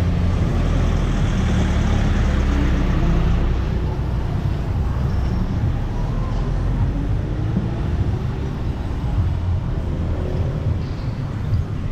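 Street traffic: nearby vehicle engines running with a steady low hum for the first few seconds, and one engine's pitch rising slowly as it pulls away, then a lower, more distant traffic rumble.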